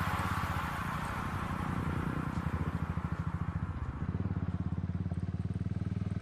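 A single-cylinder motorcycle engine running with an even, rapid pulsing beat.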